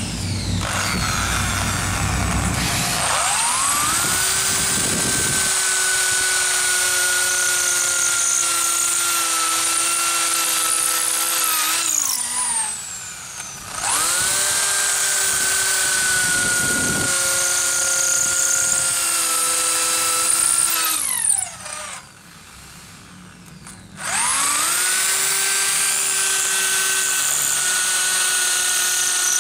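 Electric drill boring into a granite countertop: the motor whines up to speed, runs while the bit grinds into the stone, then winds down. This happens three times, the first starting about three seconds in, with a short quiet pause before the last run.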